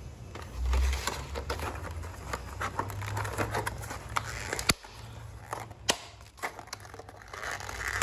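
Stiff clear plastic blister pack of Shimano disc brake pads being pried and bent open by hand: a string of irregular plastic crackles, creaks and sharp clicks, with a dull bump about a second in.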